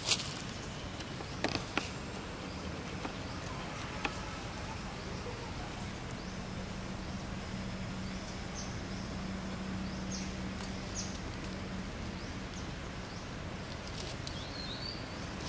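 Outdoor ambience: a steady background hiss with a few soft clicks in the first seconds, a faint low hum through the middle, and a handful of short, faint high chirps.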